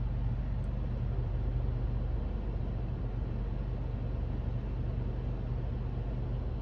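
A steady low hum over constant background noise, unchanging throughout.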